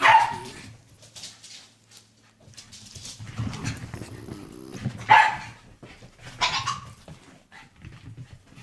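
A dog barking: one sharp bark at the start, then two more about a second and a half apart near the end, with quieter sounds between.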